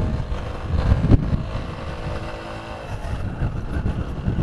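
Motorcycle engine running steadily under way, with uneven wind rumble on the microphone and a brief knock about a second in.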